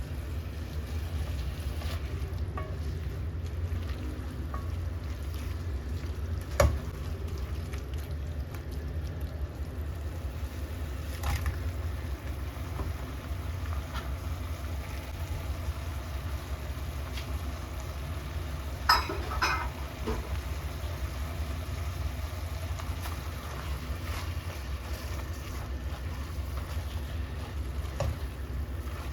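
Kitchen cooking sounds: a steady low hum with a few sharp clinks of a utensil on cookware, the loudest about a third of the way in and a quick cluster about two-thirds in.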